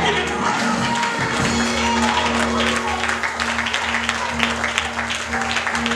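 Gospel church music: a low note held steadily under many quick sharp hits, with congregation clapping and voices mixed in.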